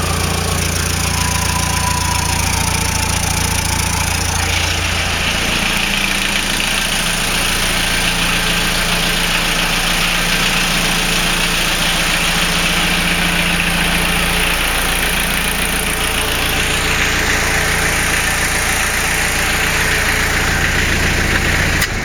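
Engine of an off-road special running steadily. Its deep low note fades about five seconds in, leaving a higher note, and comes back about sixteen seconds in.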